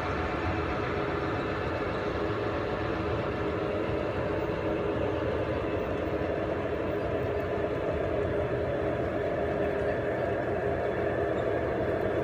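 Garden-scale model train running on its outdoor track: a steady rolling hum.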